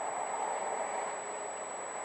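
Steady road and engine noise of a car driving, heard from inside the cabin through a dashcam's microphone.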